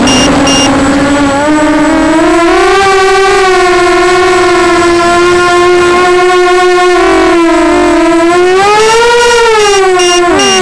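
Walkera Runner 250 racing quadcopter's brushless motors whining, the pitch rising and falling with the throttle. A low-voltage alarm beeps rapidly, about three times a second; it stops about half a second in and starts again near the end, a sign that the battery is running low.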